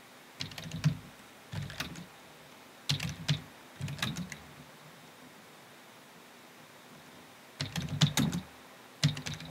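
Computer keyboard typing in short bursts of keystrokes, with a pause of about three seconds in the middle.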